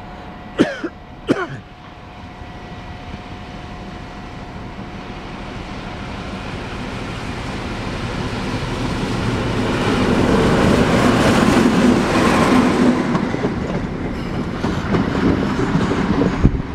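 XPT diesel passenger train arriving and rolling past, its noise growing steadily louder as it draws in and peaking as the carriages go by. About a second in there are two short falling sounds.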